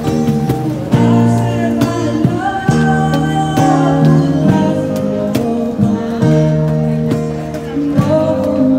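Street musicians strumming acoustic guitars in a steady rhythm, with a voice singing along.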